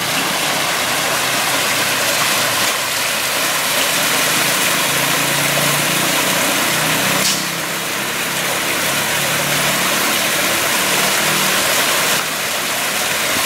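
Small rock waterfall splashing into a garden koi pond: a steady rushing of falling water, with a faint low hum under it.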